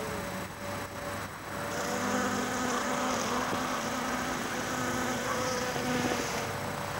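Honeybee buzzing close by in flight around aster flowers, a steady hum that swells about two seconds in and drops away near the end.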